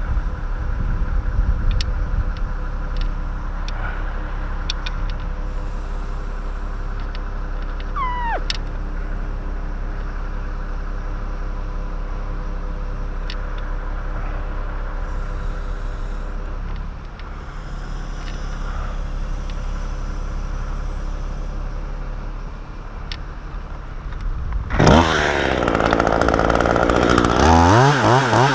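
Bucket truck's engine running steadily, with scattered light clicks and a brief falling squeal about eight seconds in. About 25 seconds in a chainsaw starts and runs, revving up and down near the end.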